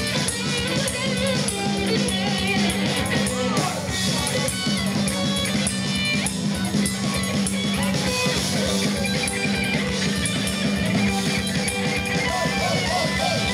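Rock band playing live without singing: electric guitar and bass guitar over a drum kit keeping a steady beat.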